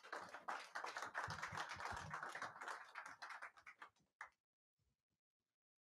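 Audience applause, many hands clapping, dying away about four seconds in.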